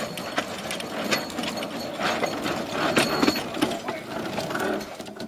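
Handcar running along a miniature railroad track: a steady, rattling mechanical clatter of wheels and moving parts, made of many sharp clicks.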